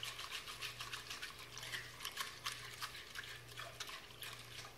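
Small silicone whisk stirring salted yeast water in a glass bowl to dissolve the salt: quick, light swishing strokes through the liquid with faint ticks against the glass.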